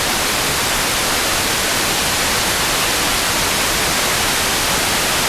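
Steady hiss of FM radio static from a software-defined radio receiver. The sporadic-E signal of the distant station has faded out, leaving only noise.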